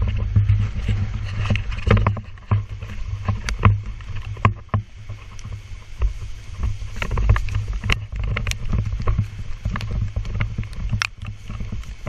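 Low rumble of wind buffeting the microphone, broken by many irregular thumps and knocks from footsteps and from handling of the camera as it is carried along at a quick walk.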